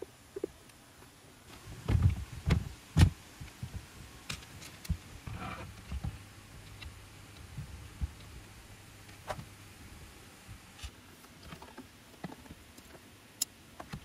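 Hands handling gear in a car interior: a few heavy low knocks about two to three seconds in, then scattered lighter taps and clicks, over a faint steady low hum.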